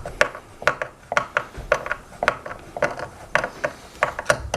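Ratcheting screwdriver clicking in a quick, slightly uneven rhythm of about three clicks a second as a machine screw is driven into a hoverboard's metal frame.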